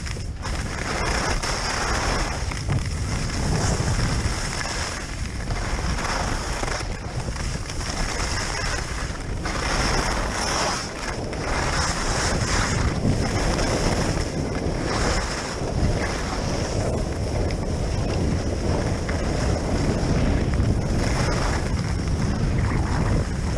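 Wind buffeting the microphone over the hiss and scrape of skis sliding on snow. The scraping swells and fades every second or two.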